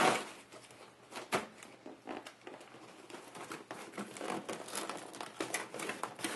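A cardboard box being handled and opened: two sharp knocks, one at the start and one about a second and a half in, then a run of small rustles, crinkles and clicks as the end flap is worked open.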